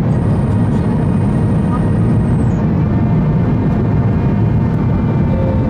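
Cabin noise of a Boeing 737-800 in flight, heard from a window seat over the wing: a loud, steady, low roar of its CFM56 engines and the airflow. A faint high whistle sounds for the first two seconds or so.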